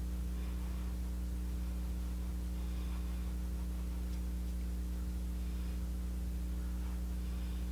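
Steady low electrical hum, unchanging throughout, with faint soft swishes of a foundation brush spreading thick paste over the cheek.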